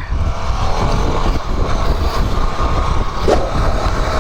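Royal Enfield Himalayan 411's single-cylinder engine running under heavy, fluttering wind rumble on the microphone.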